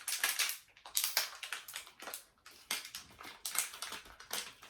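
Handled packaging of a mystery pin blind box crinkling and rustling in irregular short bursts as it is unwrapped.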